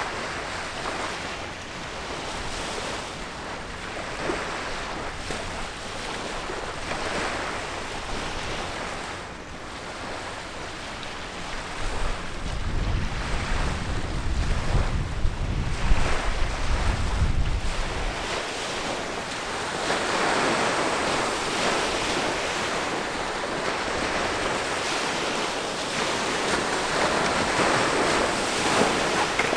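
Wind blowing across the microphone over the wash of river water. For several seconds near the middle a stronger gust buffets the microphone with a low rumble.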